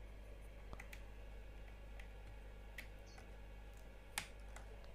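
A few sparse, sharp clicks from handling the keyboard and its detachable USB-C cable, the loudest about four seconds in, over a faint steady hum.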